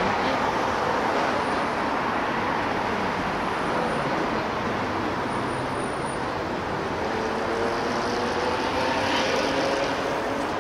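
Steady road traffic noise from cars on a city street, with a faint engine tone gliding slowly in the second half.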